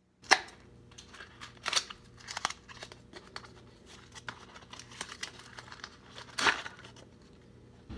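A small cardboard box being opened and handled by hand, with crinkling and tearing of its packaging. Irregular sharp snaps stand out about a third of a second in, near two seconds and about six and a half seconds in.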